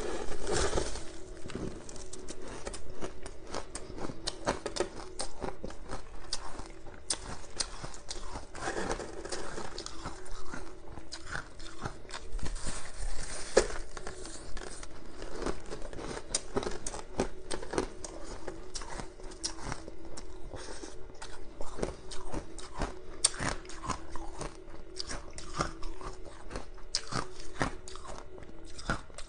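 Biting and chewing a frosty block of purple flavoured ice: a dense, irregular run of crisp crunches and crackles.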